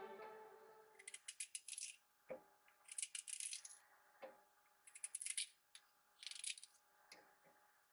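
Faint rattling: four short spells of quick small clicks, with a single soft knock between spells.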